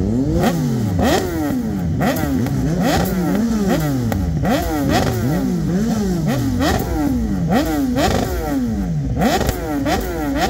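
BMW S1000RR inline-four engine with an Akrapovic GP exhaust, revved in quick, repeated throttle blips while the bike stands still. The pitch jumps up and falls back about once or twice a second, with sharp cracks from the exhaust at many of the peaks.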